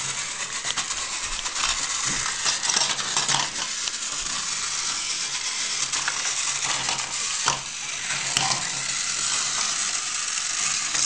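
Battery-powered toy Thomas train engine running along plastic toy track: a steady rattling hiss with many small clicks, and one sharper click about seven and a half seconds in.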